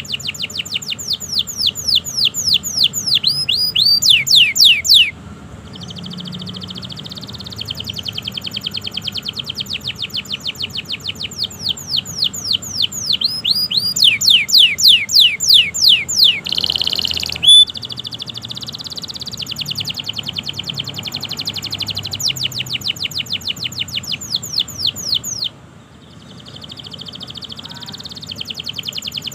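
Domestic canary singing a long song: runs of fast, repeated sweeping whistled notes, several a second, alternating with softer rolling trills, with one short loud note about two-thirds of the way through.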